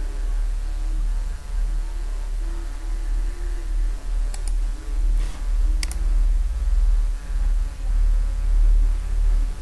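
Steady low hum with two sharp computer-mouse clicks, about four and six seconds in.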